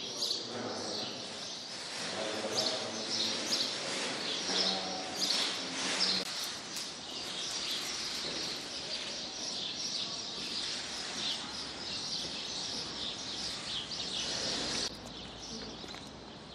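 Many small birds chirping and twittering together in a dense, continuous chatter, dropping suddenly to a quieter level near the end.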